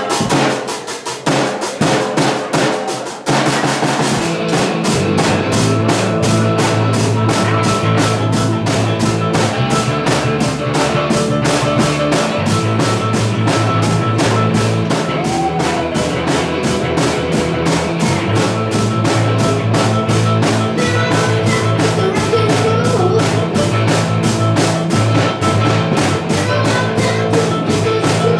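Live rock-and-roll band playing. The drum kit plays alone for about three seconds, then electric guitar and a bass line come in over a steady rock beat.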